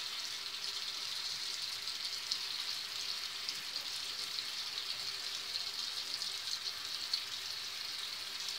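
Steady, crackling hiss, high in pitch and unchanging throughout.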